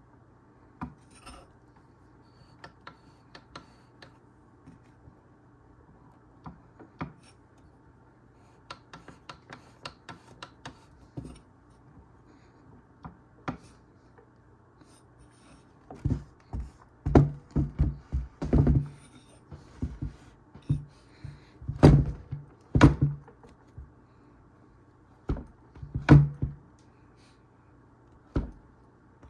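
Light clicks and metal ticks from hands working the pedals of a Fanatec ClubSport Pedals V3 set. About halfway in they give way to a run of loud, irregular clunks and knocks.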